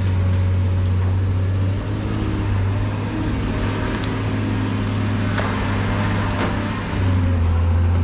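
A motor running steadily with a low hum, easing off slightly in the middle and swelling again near the end, with two sharp metallic clicks about five and six seconds in.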